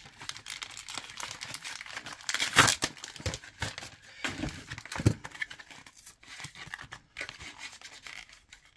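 Stiff plastic blister packaging of a trading-card collector pack being handled and pried open, crinkling and scraping irregularly, with sharp crackles about two and a half seconds in and again around five seconds.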